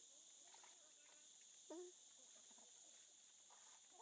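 Faint short calls from macaques over a steady high hiss. The loudest is a brief squeak about two seconds in that drops sharply in pitch, with another short call near the end.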